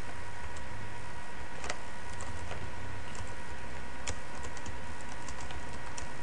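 Computer keyboard typing: a series of irregularly spaced keystrokes over a steady background hum.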